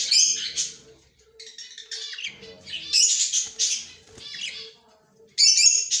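Green Australian parrot calling in four quick bursts of harsh, scratchy squawks and chatter, the loudest at the start and near the end.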